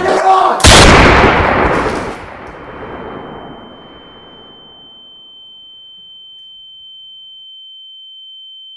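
A single loud gunshot with a long echoing fade, followed by a steady high-pitched ringing tone: the film effect of ears ringing after a shot.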